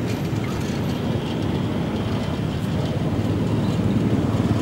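Low, steady rumble of motor traffic on the road, growing louder toward the end.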